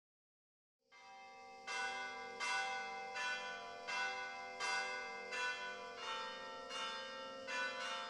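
Bell chimes: a sustained ringing tone fades in about a second in, then bells are struck one after another, about one strike every three quarters of a second, each ringing on into the next.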